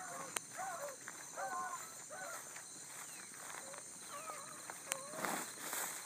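Bluetick hounds baying as they run a rabbit's track: a string of short, repeated bawls from several dogs. A couple of sharp clicks and a brief rustle of brush come near the end.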